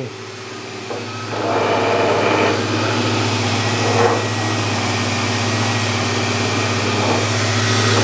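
Electric dust extractor running steadily with a low hum and a faint whine, growing louder about a second and a half in.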